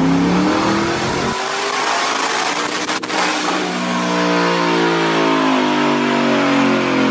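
Twin-turbocharged 5.0 Coyote V8 of a Mustang GT at full throttle on a chassis dyno, its pitch rising steadily as it revs through the pull. A sharp click comes about three seconds in, and the pitch climbs again in the second half.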